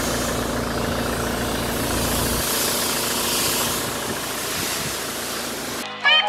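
Diesel car engine idling; its deeper hum fades away about two and a half seconds in. Guitar music cuts in just before the end.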